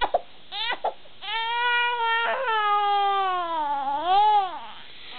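Infant crying: a few short gasping catches, then one long wail lasting about three seconds whose pitch dips and rises again near its end, with fresh catches of breath just after it.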